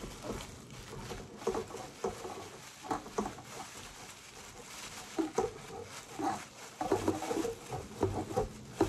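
Plastic bag crinkling and rustling in irregular crackles as it is rubbed over a baking pan to grease it with butter.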